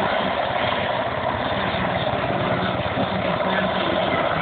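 EH101 Merlin helicopter flying slowly at low height; its rotor and three turbine engines make a steady, even noise.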